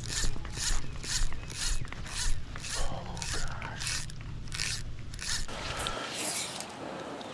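Fly reel's click drag ratcheting as line is pulled off in quick pulls, about two a second, stopping about five seconds in. A low wind rumble on the microphone cuts out about a second later.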